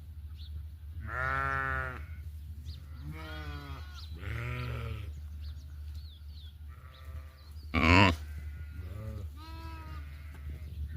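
Goats bleating, about seven calls of varying pitch one after another, the loudest a short one about eight seconds in.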